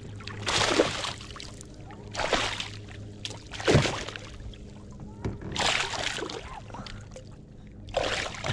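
Water splashing in five short bursts, over a steady low hum.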